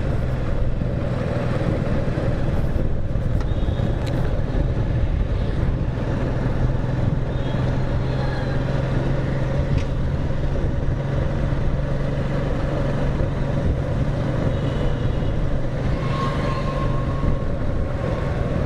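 Motorcycle engine running steadily at cruising speed, with road noise, heard from the rider's seat.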